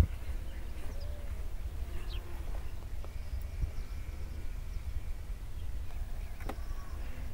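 Wind rumbling on the microphone outdoors, with a few faint bird chirps and a sharp click near the end like a trekking pole or boot striking rock.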